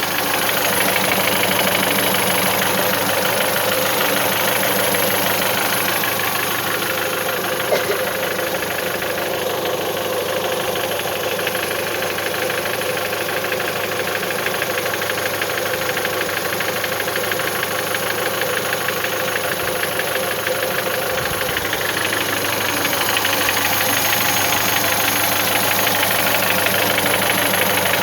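Mitsubishi 1.8-litre engine running at a steady speed with a rapid, even knocking from inside the engine, of unknown cause to the owner. One sharper click stands out about eight seconds in.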